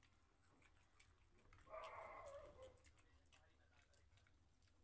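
Near silence: faint scattered clicks and smacks of eating by hand, with one brief faint voice-like sound about two seconds in.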